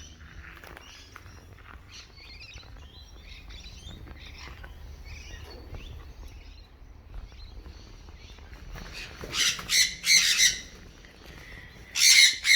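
Galah cockatoos chattering with soft short chirps, then three loud, harsh screeches near the end.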